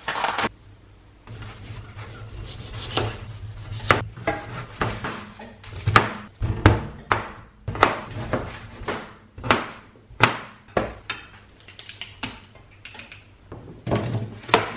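Kitchen knife cutting potato on a plastic chopping board: irregular sharp knocks of the blade striking the board, several a second. A brief crinkle of cling film comes right at the start.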